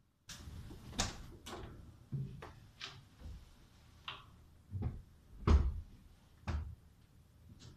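Footsteps and the driver's door of an old Audi 100 being opened as someone gets in: a string of separate knocks and clunks, the loudest a little past halfway through.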